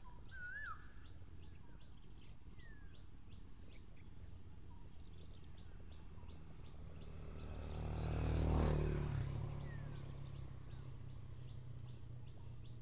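Birds chirping over a faint, regular high ticking. A passing motor swells to its loudest about eight seconds in, then fades.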